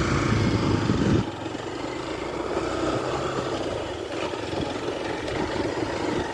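A motor vehicle engine running steadily. Its low hum drops away about a second in, and a weaker, rougher engine sound carries on.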